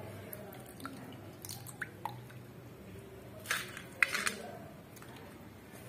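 A hand stirring and squeezing wet sprouted beans in a steel bowl of water to wash them, with soft squishing and dripping. A few light clicks and taps come in the middle and about three and a half to four seconds in.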